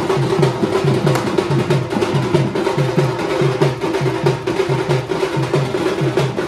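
Music with a steady, fast drum beat of about four strokes a second over a held tone.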